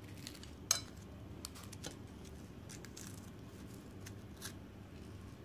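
Faint crackles and clicks of flaky baked puff pastry being broken open and handled over a plate, the sharpest about a second in and a few softer ones after.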